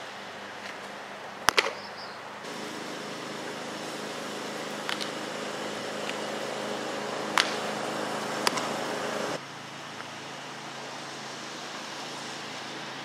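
A pitched baseball smacks into a catcher's leather mitt once, a sharp pop about a second and a half in. A steady machine hum starts and stops abruptly midway, with a few lighter clicks over it.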